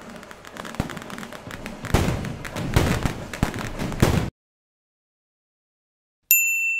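Dense crackling noise full of sharp pops and hits, which cuts off suddenly about four seconds in. After two seconds of silence a single bright notification ding rings out near the end.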